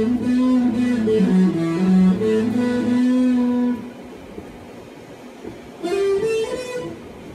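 Electric guitar being played, with held notes that step up and down in pitch. It drops away about four seconds in and starts again near the end.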